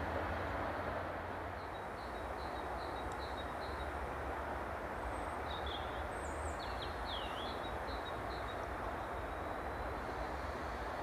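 Steady low rumble and hiss of a train still far off down the line, not yet getting louder. Over it a small bird chirps: a run of short chirps a couple of seconds in, then a few quick downward-sweeping calls around the middle.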